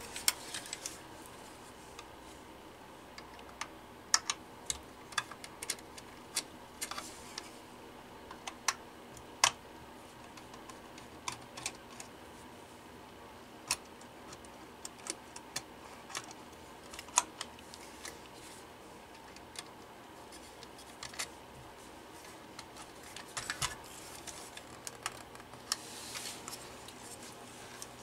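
Scattered small, irregular clicks and taps of metal and plastic as the rotary dial and chassis of a Western Electric desk telephone are handled and worked at, with a couple of brief rustles near the end.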